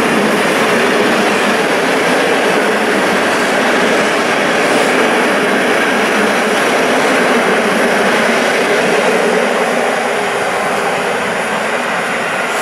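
Passenger train coaches rolling past on the rails at speed, a steady rush of wheels and running gear that eases off near the end as the last coach passes and the train draws away.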